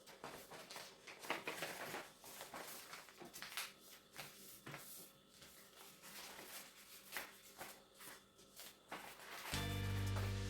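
Paper being folded and creased by hand: scattered short rustles and taps. Music starts near the end.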